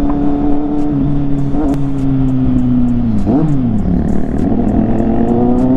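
Kawasaki inline-four motorcycle engine heard from the rider's seat, running at a steady pitch, then dropping off about three seconds in with a quick rise and fall of revs. After that it pulls with its pitch climbing steadily toward the end.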